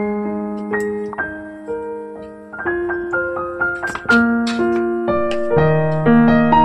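Background piano music, single notes and chords struck one after another and left to ring.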